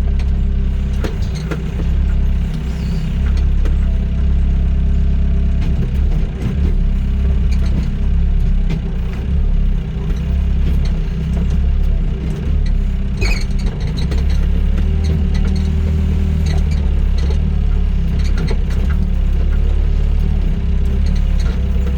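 Doosan DX55 mini excavator's diesel engine running steadily, with a few short knocks and clanks, the sharpest about thirteen seconds in.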